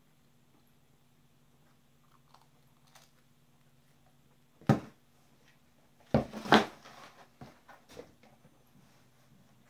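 A person biting into and chewing a piece of dry pizza crust: one sharp crunch about four and a half seconds in, a burst of louder crunching around six seconds, then softer chewing clicks.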